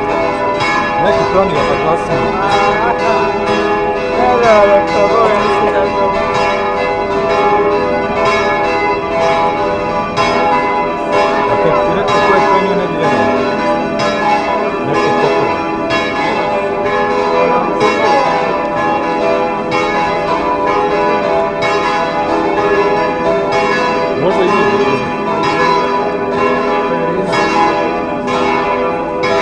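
Serbian Orthodox cathedral bells ringing a festive peal in welcome: several bells struck rapidly and without pause, their tones overlapping and ringing on.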